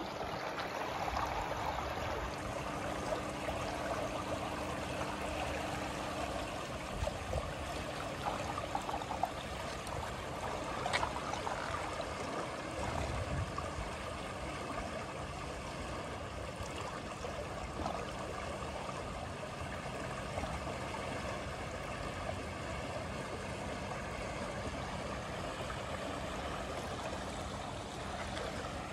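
Brisbane River in flood: fast brown floodwater rushing and lapping along the edge of a submerged riverside walkway. It makes a steady wash of water noise.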